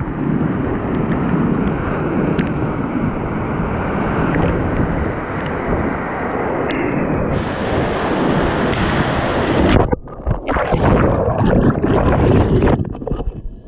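Whitewater rapids of a river in flood, rushing steadily right at a kayak-mounted camera. About ten seconds in, the sound breaks off and turns to muffled, uneven churning and gurgling as the camera goes under the muddy water.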